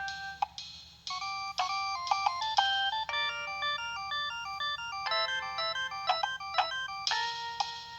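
Preloaded ringtone playing on a Nokia 6610 mobile phone: a quick synthesized melody of short notes, with several notes sounding together.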